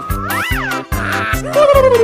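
Background music with a quick, steady beat and whistle-like tones that glide up and back down.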